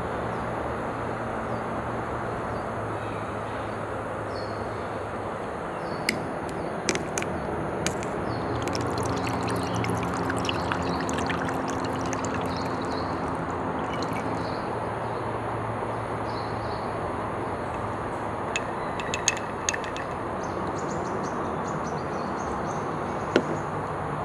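A plastic bottle of calamansi plum drink is twisted open with a few sharp clicks about six seconds in. The drink is then poured over ice cubes into a glass, with a run of fine crackles as it fills, followed by a few more ticks and a single knock near the end as the bottle is set down on the table. A steady background hiss and low hum run underneath.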